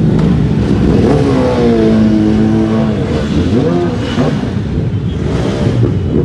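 Several motorcycle engines running together at close range while one is revved: its pitch rises about a second in, holds high for about a second, then drops, followed by shorter blips of the throttle.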